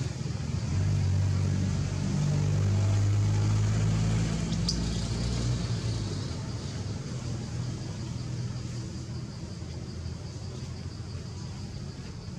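A motor vehicle's engine, a low steady hum that swells about a second in and fades after about six seconds, over a steady high hiss.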